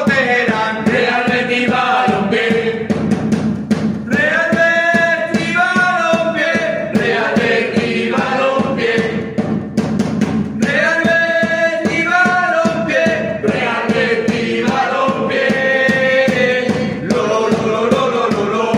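Voices singing a football supporters' chant for Real Betis over backing music, the sung phrases repeating every few seconds.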